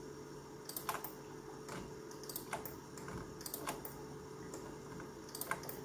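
Computer keyboard keys and mouse buttons clicking faintly, a dozen or so irregular clicks, over a faint steady hum.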